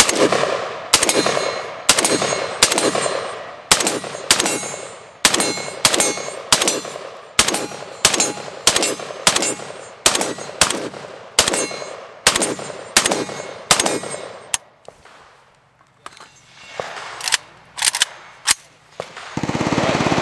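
AK-105-pattern pistol in 5.45x39 firing a long string of rapid semi-automatic shots, about two a second. The shots pause for about two seconds some fifteen seconds in, then four more come in quick succession.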